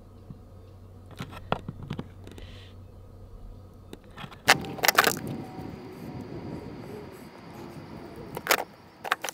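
Handling noise of hands working wires and tools at a plastic solar junction box: scattered light clicks and small rattles, with sharper clacks about four and a half, five and eight and a half seconds in.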